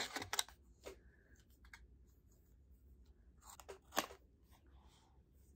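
A small cardboard product box being handled and opened on a table: scattered light taps, scrapes and rustles of cardboard and plastic packaging, with a sharper knock about four seconds in.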